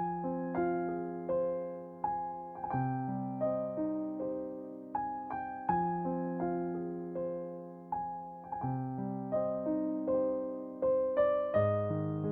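Gentle background piano music: soft chords and single notes struck about every half second, each fading away.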